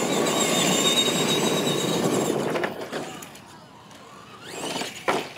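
R/C monster trucks' electric motors whining at full throttle with the rattle of their tyres on dirt, dropping away sharply about two and a half seconds in as the trucks come off the throttle. Near the end there is a short rising whine and a sharp click.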